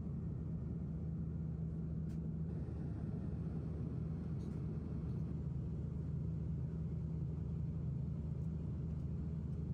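Steady low drone of an Airbus A330 airliner cabin in cruise: engine and airflow noise with a constant low hum.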